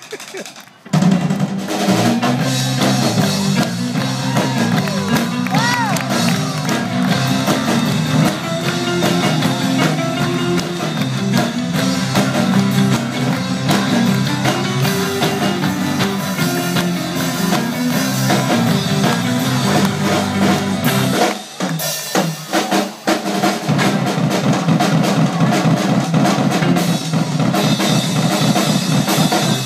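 A live rock band of drum kit, electric guitars and bass kicks into a song about a second in and plays on with a fast, driving drum beat under a repeating guitar riff. The band thins out briefly about two-thirds of the way through, then comes back in full.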